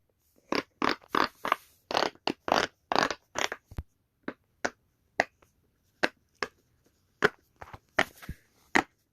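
Silicone pop-it fidget toy bubbles being pressed one after another, each giving a short pop. There is a quick run of pops in the first few seconds, then slower, spaced pops.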